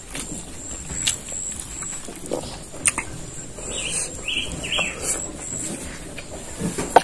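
Close-up eating sounds of a man eating noodles and fried egg with his fingers: wet lip smacks and chewing, with several sharp smacks. A few short bird chirps come in about four seconds in.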